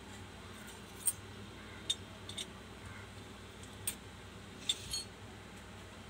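About half a dozen light, sharp clicks and ticks, scattered irregularly, from a small circuit board and tools being handled, over a faint steady low hum.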